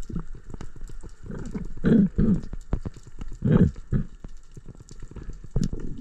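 Underwater sound picked up by a diving camera: a constant crackle of sharp little clicks, with low, muffled swishes of water moving around the diver a few times, loudest about two seconds in and again past three and a half seconds.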